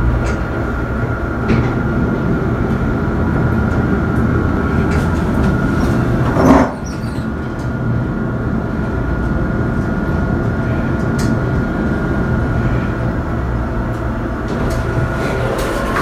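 Elevator car riding up from the basement: a steady rumble with a faint steady whine over it, and one short clunk about six and a half seconds in. The whine stops shortly before the end as the car arrives.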